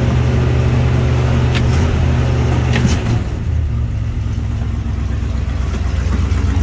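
1986 Chevy K30 one-ton's 305 V8 running at idle just after a cold start at 12 degrees. Two sharp clicks come about a second and a half and three seconds in, and after the second the engine note settles lower and a little quieter.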